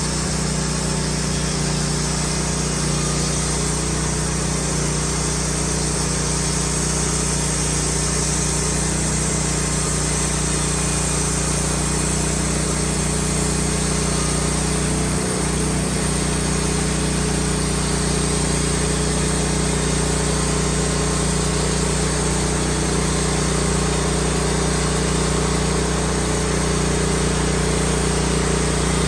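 Woodmizer LT15 portable band sawmill running steadily under power, its engine holding a constant speed, with one brief dip in pitch about halfway through.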